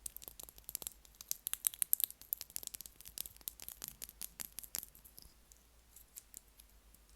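Fast, crisp clicks and taps close to the microphone. They come thick and quick for about five seconds, then thin out to scattered single clicks.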